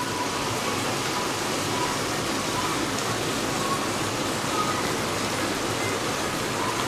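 Onions and tomatoes sizzling in oil in an aluminium kadai, a steady, even hiss. The tomatoes are softening and starting to give off their juice.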